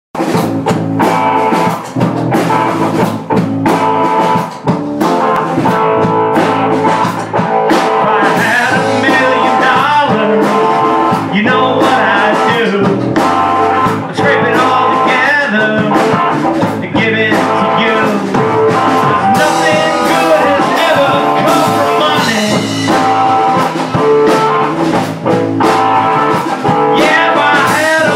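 Rock band playing live: electric guitars and a drum kit, with a sung vocal over them.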